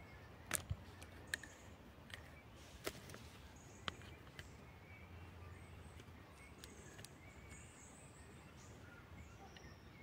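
Faint woodland ambience: a low steady rumble of wind on the microphone, a few sharp clicks and snaps in the first four seconds, and short, faint, high-pitched bird calls here and there.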